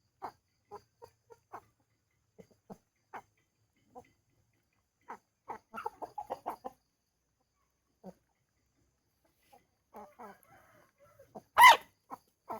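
Chickens clucking in short, scattered notes, with a quicker run of clucks about six seconds in. Near the end comes one loud, sharp sound.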